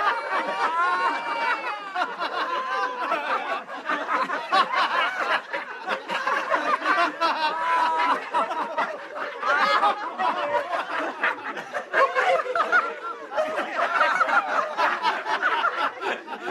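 Men laughing without a break: chuckling and snickering, in short bursts that rise and fall in pitch.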